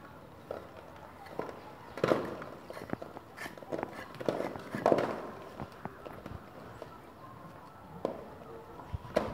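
Irregular scrapes and knocks of a plasterer's hand trowel working wet cement on a cornice molding, loudest in clusters about two and five seconds in.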